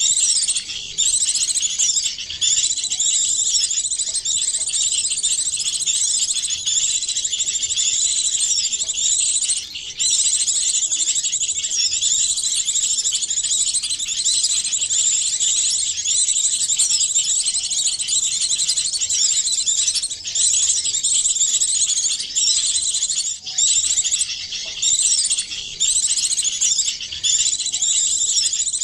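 Calls of several small songbirds layered into one bird-trapping lure recording: a dense, continuous stream of high, rapid chirps and twitters.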